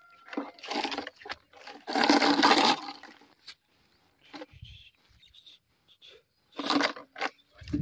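Plastic bottle crackling as it is squeezed and handled close by, in a few loud bursts, the longest about two seconds in, with quieter crackles after.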